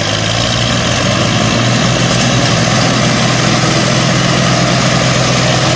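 Massey Ferguson 240 tractors' three-cylinder diesel engines running hard under load, a loud steady rumble that climbs at the start and then holds even.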